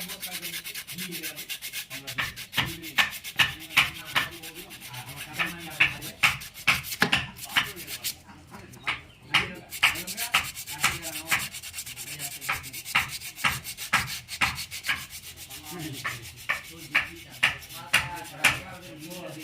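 Hand sanding with sandpaper in quick back-and-forth strokes, about two to three a second, pausing briefly once partway through.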